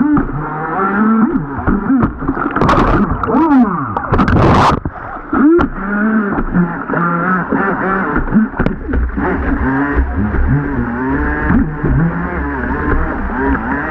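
RC jet boat's motor whining, its pitch rising and falling over and over with the throttle. A short rushing burst comes about four and a half seconds in.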